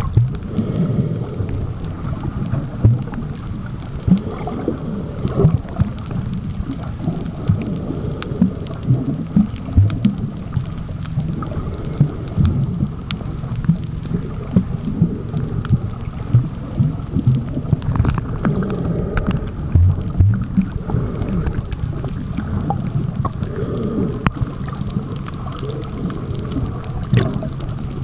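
Muffled underwater noise picked up by a submerged camera: a low rumble of moving water with many irregular soft knocks and gurgles.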